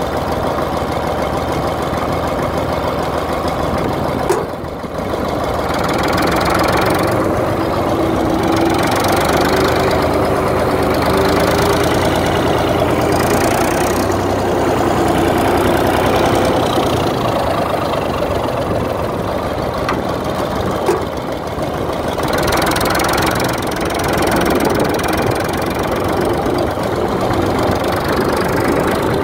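Bolinder-Munktell BM36 tractor's diesel engine running as it drives, on a test run after injection pump and injector adjustments with new injector nozzles. The sound drops briefly twice, about four seconds in and again about twenty-one seconds in.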